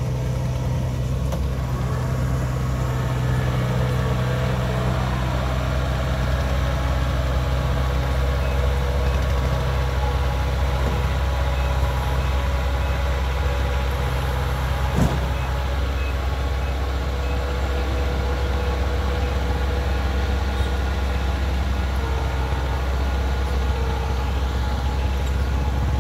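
Kubota DC70 combine harvester's diesel engine running steadily under load as the machine is manoeuvred down a steep bank, with a single sharp knock about midway.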